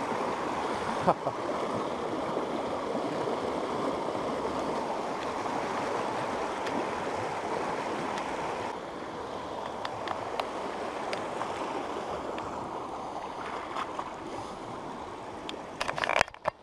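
Fast, shallow stream rushing over rocks: a steady wash of water noise, a little quieter about halfway through. A cluster of sharp clicks comes near the end, and then the sound cuts off suddenly.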